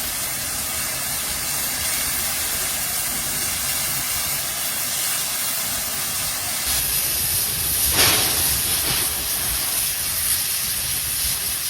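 Steam locomotive 5917 hissing steam steadily, the hiss turning brighter about two-thirds of the way through, with one sharp knock about eight seconds in.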